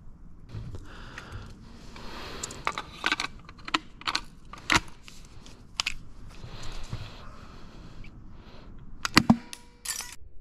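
Airsoft green gas hissing from a pressurised can into a grenade shell, in a few short stretches, with clicks and knocks from handling the King Arms M79 grenade launcher as it is readied to fire.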